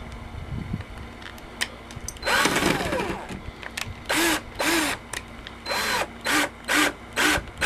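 Power drill driving door-hinge screws: one longer run about two seconds in, then a string of short trigger pulses, each spinning up and back down.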